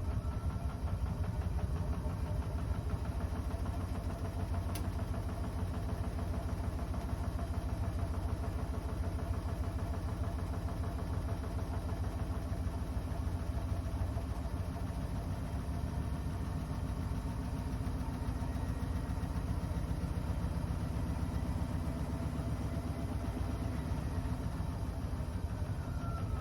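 Bosch washing machine running with a steady mechanical hum and a fast, fine rhythm throughout, never rising in pitch as a spin would; the machine has a fault that keeps it from spinning.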